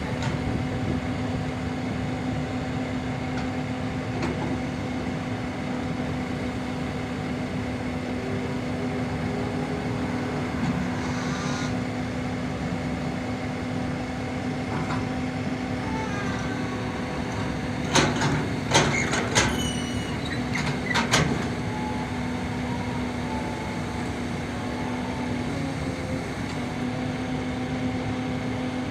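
A long-boom excavator's diesel engine running steadily. About eighteen seconds in comes a short cluster of sharp metal clanks and squeals lasting a few seconds.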